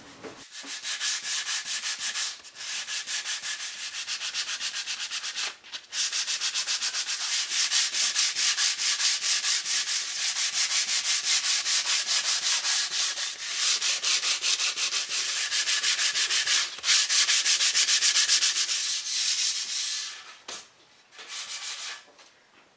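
220-grit sandpaper rubbed by hand over solid mahogany in quick, even back-and-forth strokes, about four a second, with a couple of brief pauses before it stops near the end. A light smoothing pass over wood left slightly rough by water treatment.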